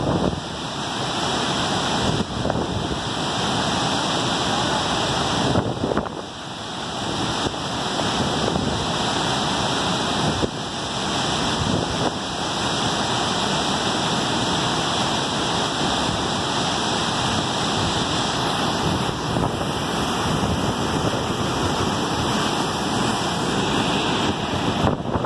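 Waterfall pouring into a plunge pool: a steady, loud rush of falling and churning water.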